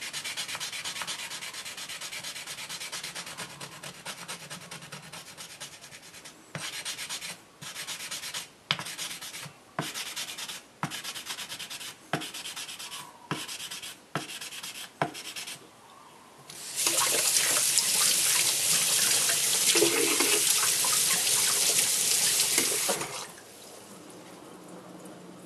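A wooden block scrubbing a slurry of coarse #120 Kongo-to grinding powder and water along a kitchen knife's blade to bring back the hazy whetstone-mark finish. The strokes run together at first, then come separately at about one and a half a second. About seventeen seconds in, a tap runs steadily for some six seconds, louder than the scrubbing.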